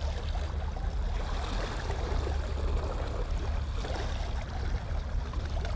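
Wind buffeting the microphone with a steady low rumble, over small waves lapping and gurgling against shoreline rocks.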